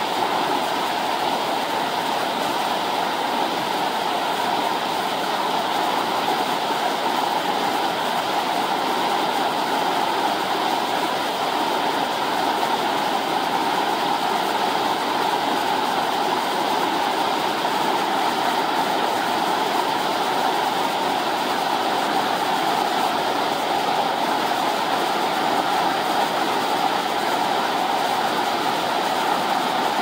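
Powerful turbulent whitewater rushing, a steady unbroken noise with no let-up.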